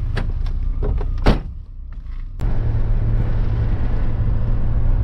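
Engine and road rumble of a car heard from inside the cabin, with a few small clicks and one sharp knock about a second in. The rumble then drops away for about a second and comes back suddenly.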